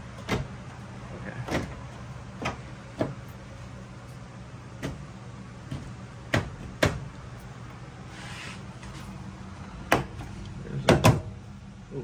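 Plastic and sheet-metal panel parts of a front-load washing machine being fitted back together: about ten separate clicks and knocks, the loudest pair near the end, with a short scrape a little past the middle.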